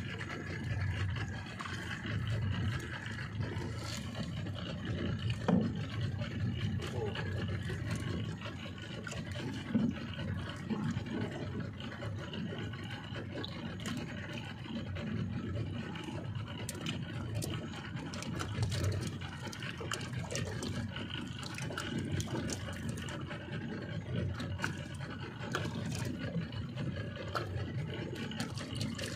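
A small boat at sea with a steady low rumble of water and wind around the hull. Water slaps against the side, and there are a few light knocks as the fishing line and rig are handled.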